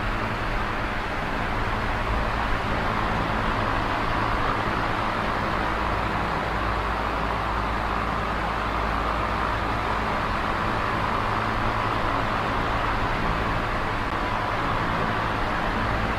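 Small oscillating electric fan running steadily: an even rush of moving air with a low motor hum underneath.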